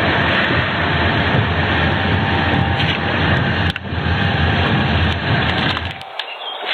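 Engine and road noise inside a moving vehicle: a loud, steady rumble that cuts off suddenly about six seconds in, followed by a few quiet knocks.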